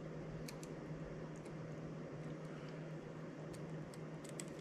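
Steady low hum of room noise with a few faint, sharp clicks as a small screwdriver and the parts of an M.2 SSD's PCIe adapter card are handled.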